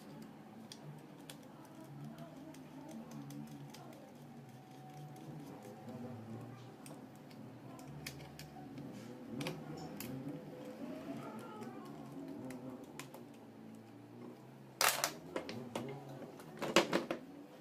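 Light scattered clicks and taps of a hand tool and gloved hands working the screws on an alternator's rear cover, then two short, louder bursts of clattering knocks near the end.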